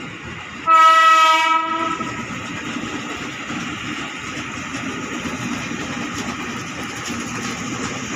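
KRL Commuter Line electric train sounding one loud horn blast, a single steady note about a second long, over the steady rumble of the train running along the rails.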